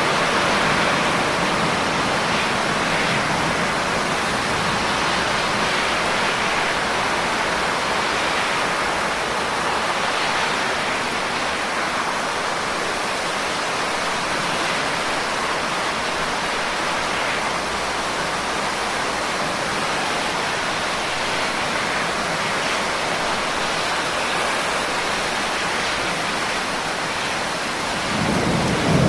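Steady rain falling, an even hiss of drops. A low rumble of thunder swells up near the end.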